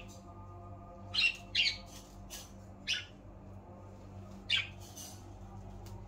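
Pet budgerigars giving short, scattered chirps and squawks, about half a dozen separate calls, over a steady low hum.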